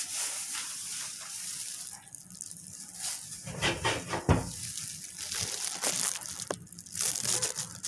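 Handling noise of a plastic toy capsule vending machine: rustling of a disposable plastic glove and plastic clatter as its top is taken hold of. There is a sharp knock about four seconds in and two light clicks a couple of seconds later, over a steady hiss.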